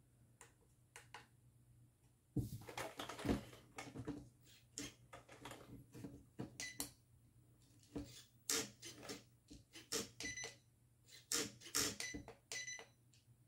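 A 1/18 RC crawler's small motor and gearbox whirring in short spurts as the throttle is blipped, with clicks and brief high-pitched tones from the electronic speed controller. The ESC sounds very strange, and the low-resolution proportional throttle gives audible steps.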